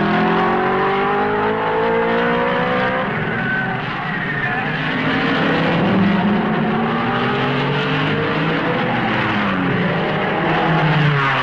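1950s Grand Prix race car engines accelerating out of a tight hairpin, several cars one after another, each engine's pitch rising as it pulls away. Near the end there is a sharp swing in pitch.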